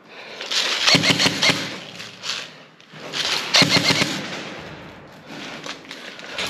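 Airsoft guns firing in two bursts of rapid shots, one about half a second in and another around three seconds in.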